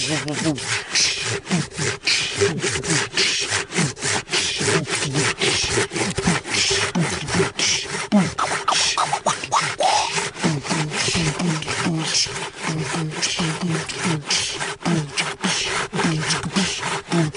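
A saw cutting through wood with quick, even rasping strokes, several a second, going on without a break.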